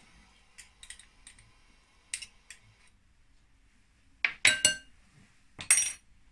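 Metal whisk and spoon on a glass mixing bowl of egg yolks and sugar: a few light ticks, then two loud ringing clinks about four and six seconds in.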